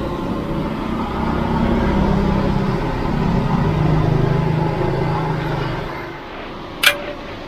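A motor vehicle's engine running close by, swelling and then fading away as it passes, its pitch dropping partway through. A single sharp clack near the end.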